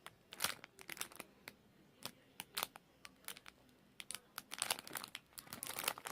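Crinkling and rustling of plastic packaging as a squishy foam toy is handled, in short irregular crackles that grow busier in the second half.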